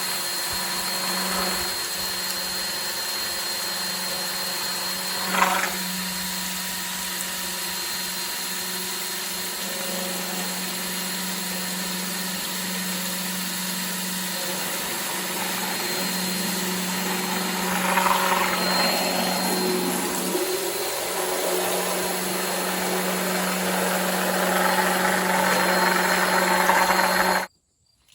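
Cordless drill spinning a drill-driven water pump, running at a steady speed with a constant hum. There is a sharp click about five seconds in, and a rougher hiss grows over the last few seconds. The drill stops abruptly just before the end.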